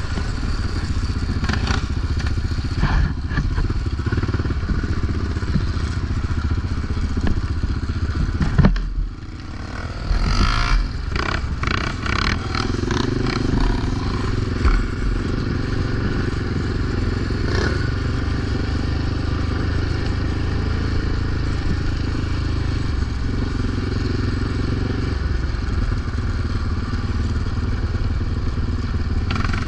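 Quad bike engine, a Yamaha Raptor 700's big single-cylinder four-stroke, running steadily. The sound drops briefly about nine seconds in, followed by a cluster of clattering knocks.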